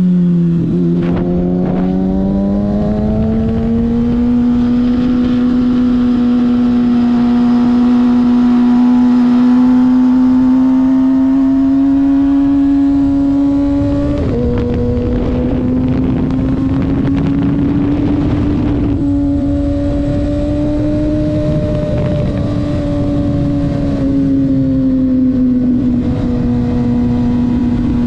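Kawasaki ZX-6R 636's inline-four engine running at high revs on a race track, heard from a helmet chin-mounted camera over steady wind rush. The revs are at a low point right at the start, climb over the first few seconds, then hold high with small steps up and down.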